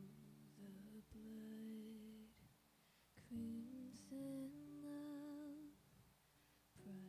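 A young woman's solo voice singing a slow hymn softly into a microphone, in long held phrases with short breaths between, one note wavering with vibrato about five seconds in, over quiet acoustic guitar.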